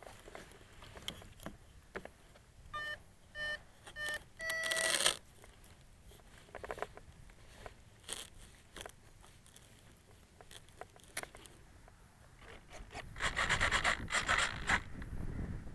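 Electronic beeps from the Phoenix 2000 RC glider's radio gear as it is powered up: four short beeps of the same pitch, then a longer beep about five seconds in. Scattered handling clicks, and near the end a gust of wind on the microphone.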